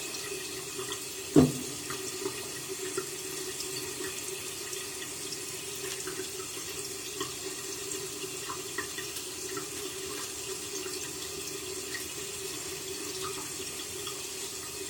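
Tap water running steadily into a bathroom sink, with one sharp knock about a second and a half in.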